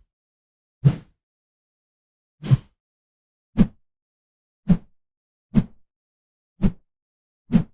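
Fast swoosh sound effects: seven quick whooshes, each over in a fraction of a second, coming about once a second with silence between them.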